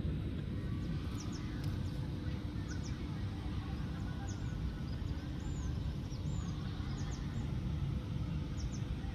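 Birds chirping: short high chirps come every second or so over a steady low rumble of outdoor noise.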